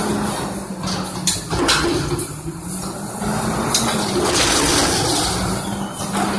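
Front-loader garbage truck emptying a dumpster held upside down over its hopper. The engine and hydraulics run steadily under a rushing of falling trash, and the dumpster is banged several times to shake it out, with sharp knocks about a second and a half in and again near four seconds.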